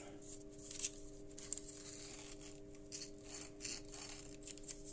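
Faint rubbing and light scraping of fingers working the metal barrel and knurled retaining nut of an electric soldering iron loose, to free its worn-out copper tip, with a few soft scratchy ticks.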